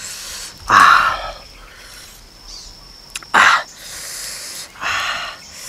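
A man hissing and gasping, sharply drawing air through clenched teeth in about four bursts, a couple with a short voiced groan, from the burn of chili sauce.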